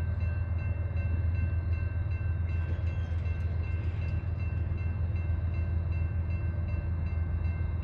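Approaching train with a steady low rumble, over a continuous high ringing that pulses about three times a second.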